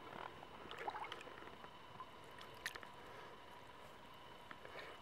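Faint water dripping and small splashes as a water lily's root clump is lifted out of the pond, with a few scattered small ticks.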